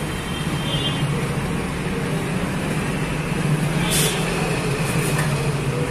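Steady road traffic noise, a low running hum of engines, with a brief hiss about four seconds in.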